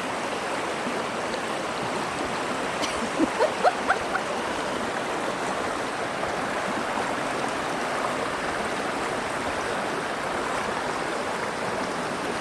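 Fast-flowing creek water rushing steadily over rocks, with a short run of louder splashes about three seconds in.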